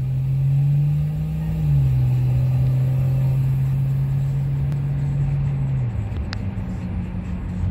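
Car engine and road rumble heard from inside a moving cab: a low steady hum that drops slightly in pitch a little under two seconds in and stops about six seconds in, followed by a single short click.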